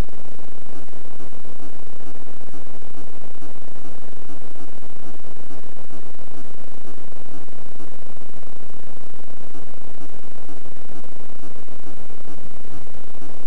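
Loud, steady static-like hiss with no distinct events, the self-noise of a cheap built-in microphone in camera glasses.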